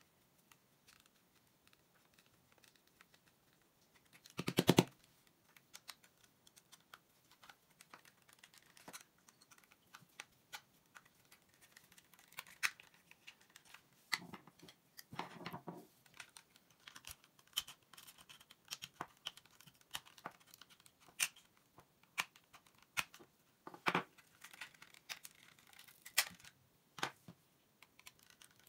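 Screwdriver working on the plastic shell of a Bloody T6 gaming mouse: scattered small clicks, taps and scrapes as screws are turned and the plastic trim pieces are prised off. There is one brief, louder squeak about five seconds in.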